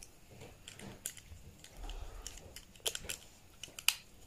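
Small, scattered plastic clicks and taps as a head is worked onto the handle of a Gillette Fusion styler trimmer without yet snapping into place; the sharpest click comes near the end.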